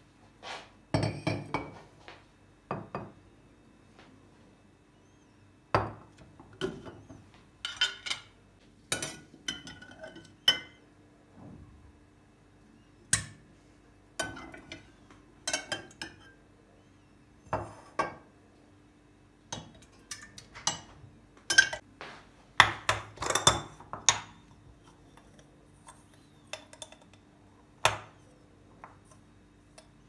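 A metal spoon scooping yogurt from a glass jar and knocking against the jar and a glass pitcher: irregular clinks and taps, with a quick cluster of them a little past two-thirds of the way through.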